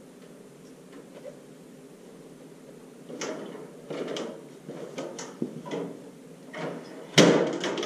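Knocks and rattles of a stepladder as a person climbs down its rungs, followed by one louder clatter near the end as the ladder is handled.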